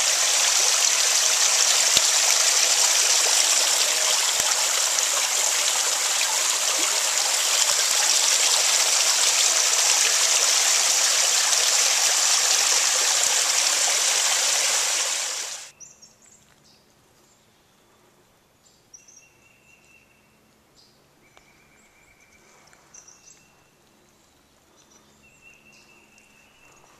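Small creek waterfall: water spilling and dripping off stepped, moss-covered rock ledges into a shallow pool, a steady splashing rush that cuts off abruptly about halfway through. After that come faint birdsong, a few short clear whistled notes repeated several times, over woodland quiet.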